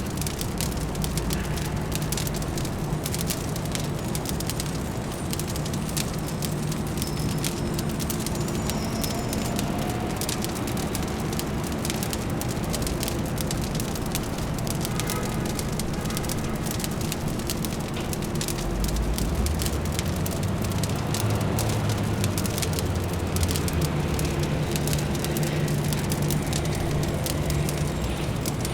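Wood fire crackling with frequent sharp pops over a steady low city hum. The low rumble grows louder about two-thirds of the way through.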